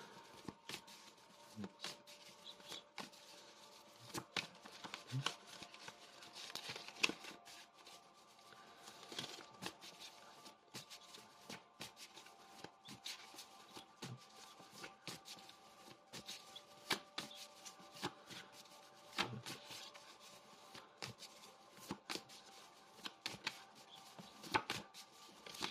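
A deck of oracle cards shuffled by hand: a fairly faint, irregular patter of soft card slaps and clicks.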